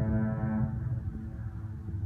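Golden Gate Bridge foghorn ending a long, steady blast: the horn's tone fades out about a third of the way in, with a faint trace of its lowest notes lingering. A steady low rumble runs underneath.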